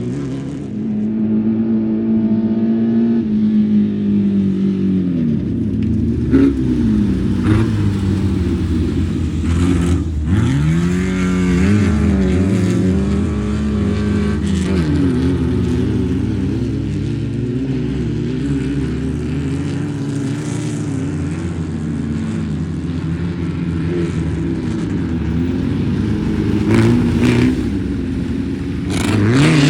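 Off-road race vehicles' engines running hard and revving as they pass, the pitch rising and falling again and again as they accelerate and shift. A few short sharp cracks stand out over the engines.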